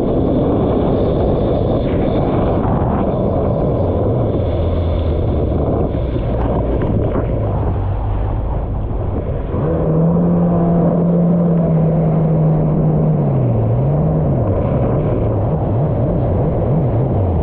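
Kawasaki SX-R 1500 stand-up jet ski's four-stroke four-cylinder engine running under a dense rushing noise. Its note holds steady for a few seconds, then rises and falls several times near the end as the throttle is worked.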